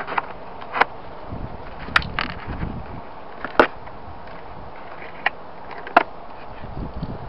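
Machine-driven nail pins being pulled out of a timber cabinet top with pliers: about half a dozen sharp, irregular clicks and snaps as the pins are gripped and worked free.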